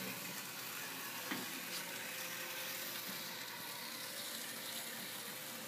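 N-scale model trams running on Kato Unitram track, a steady whirring hiss from their small motors and wheels, with a few faint clicks, one about a second in, as the wheels pass rail joints and switches.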